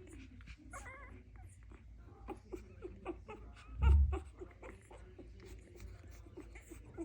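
Dalmatian puppies whimpering in many short, closely spaced squeaky calls, with a loud low thump about four seconds in.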